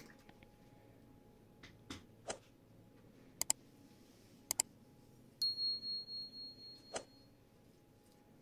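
Scattered light clicks and taps, including two quick double clicks, from a plastic squeeze bottle of tomato sauce being handled and squeezed over a metal pizza pan. Midway, a thin high tone sounds steadily for about two seconds.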